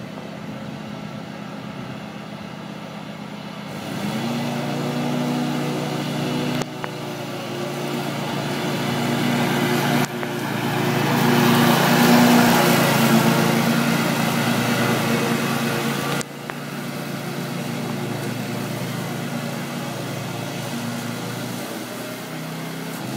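Riding lawn mower's small engine running steadily. It grows louder as the mower comes close about halfway through, then eases off, and the sound changes abruptly a few times.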